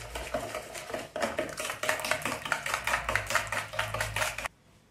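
A wire balloon whisk beating liquid egg, sugar and oil batter by hand in a plastic bowl: a fast, even clicking and sloshing at about five strokes a second. It stops abruptly near the end.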